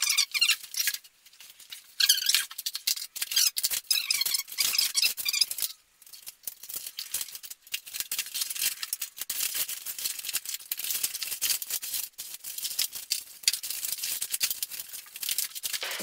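Plastic packaging and foam tube wrapping crinkling and rustling as they are pulled off a bicycle frame, with quick crackles and a few faint squeaks, busiest in the first six seconds.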